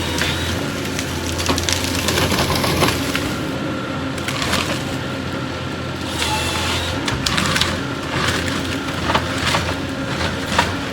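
Forestry harvester working timber: its diesel engine runs steadily under load while wood cracks and splinters in short irregular snaps as the felling head grips, fells and processes trees. A brief high hydraulic whine comes through a few times.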